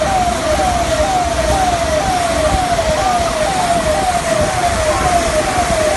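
Steady rush of floodwater, with an electronic siren on top sounding a repeating falling tone about twice a second.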